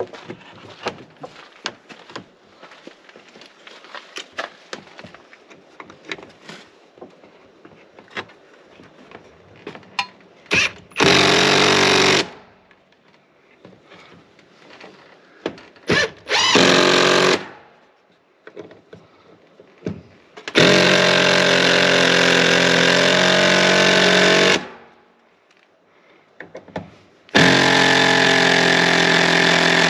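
A handheld power tool running in four bursts: two short ones, then about four seconds, then another that runs on. Light clicks and knocks of handling come before the bursts.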